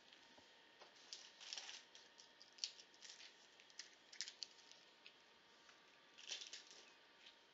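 Faint, scattered light clicks and rustles of desk handling, like paper and a pen being moved about, in a small quiet room.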